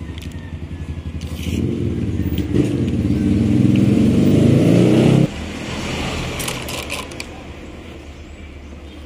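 A motor vehicle engine running nearby, growing louder over about five seconds and then dropping off suddenly, leaving a fainter steady hum with a few light scrapes.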